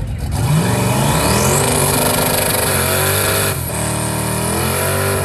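Twin-turbocharged SN95 Mustang's engine revving hard while the car stays put at the line doing a burnout, the rear tyres spinning. The revs climb for about three seconds, dip briefly about three and a half seconds in, then hold high, with a loud hiss over the engine.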